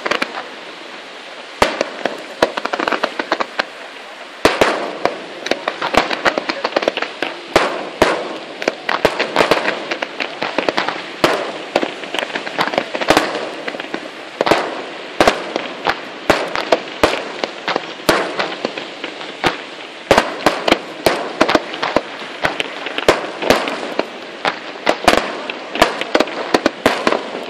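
Fireworks display: aerial shells bursting in quick succession, sharp bangs over a continuous crackle. The bangs are sparse at first and come thick and fast from about four seconds in.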